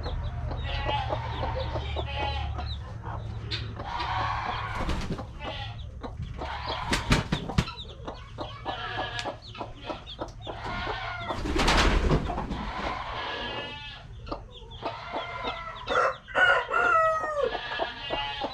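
Chickens clucking and calling repeatedly, with a few sharp knocks about seven seconds in and a brief rush of noise around twelve seconds.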